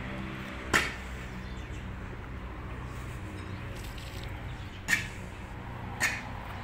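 A steady, low engine hum, like a vehicle idling, with three short sharp clicks: one about a second in and two close together near the end.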